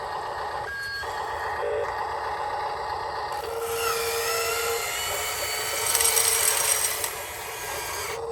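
Small electric motors and gearboxes of radio-controlled toy construction machines whirring and whining, with a scraping, grinding noise. A steady tone sounds on and off, longest about three and a half seconds in. The noise grows louder for about a second around six seconds in.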